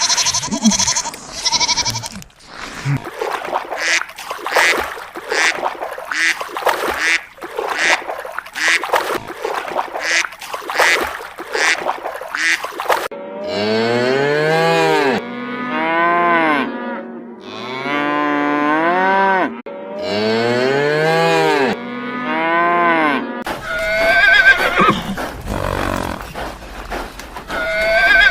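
Cow mooing: several long, loud moos in a row, each rising then falling in pitch, in the middle of the stretch. Before them comes a long run of rapid short pulses from another animal, and near the end a higher, noisier call starts.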